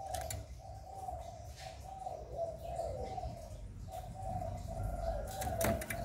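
Spotted dove (cu gáy) cooing in a cage: a run of short, repeated coos, some falling in pitch, with a brief break about four seconds in. A sharp click sounds near the end.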